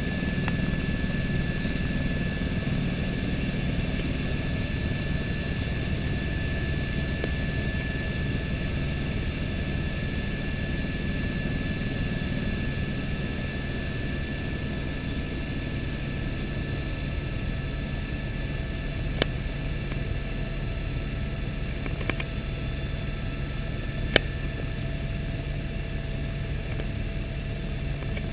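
Helicopter in cruise flight heard from inside the cabin: the steady drone of the engine and rotor with a high, steady whine over it. A few sharp clicks come in the second half.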